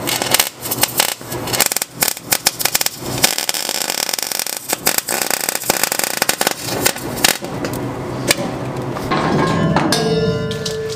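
MIG welding arc crackling and spitting in short runs as wire is fed into steel, stopping about seven seconds in. A different, steadier sound fills the last few seconds.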